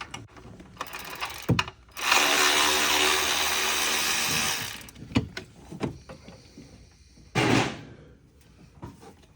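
A handheld power tool runs steadily for about two and a half seconds, then again briefly about seven seconds in. Light metallic clicks and clinks of tools and parts come before and between the two runs.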